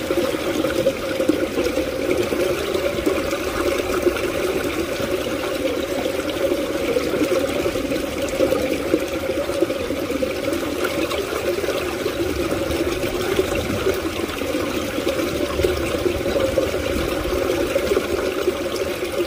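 Water pouring steadily into a small ditch, a continuous splashing rush with no breaks.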